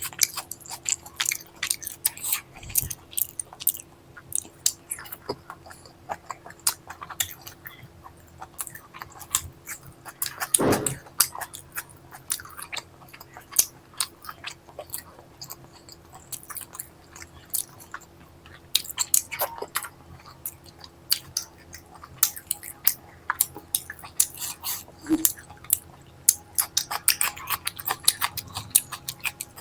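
A person chewing food close to the microphone: a dense run of wet mouth clicks and smacks, many per second, with one louder, longer sound about a third of the way in.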